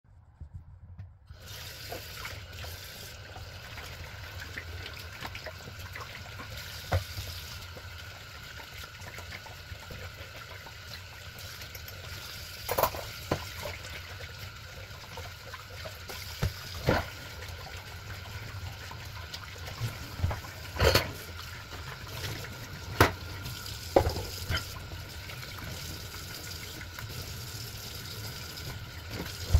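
Kitchen mixer tap running steadily into a stainless steel sink as dishes are washed by hand, starting about a second in. Scattered sharp clinks and knocks of plates, bowls and cups against each other and the sink.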